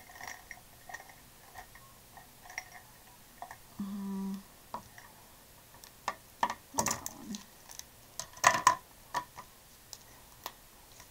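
Plastic brush pens clicking and knocking against each other as they are sorted in the hands: scattered light clicks, then a busier run of louder knocks in the second half.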